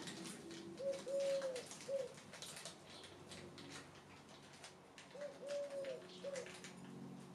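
A dove cooing twice, each time a three-note phrase of a short note, a long arched note and a short note. Faint crinkling of a small plastic bag being handled runs underneath.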